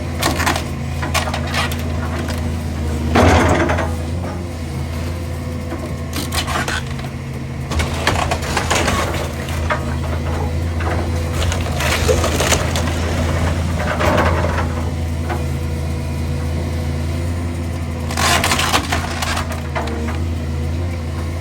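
A fire-damaged timber house being torn apart by a demolition machine: wood cracking, splintering and crashing in repeated bursts, the loudest about three seconds in and again near the end, over the machine's engine running steadily.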